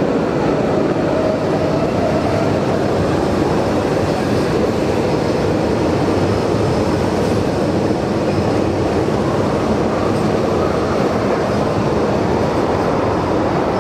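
Pyongyang Metro subway train pulling out along the platform, a steady loud rumble of wheels on rails echoing in the underground station, with the next train approaching near the end.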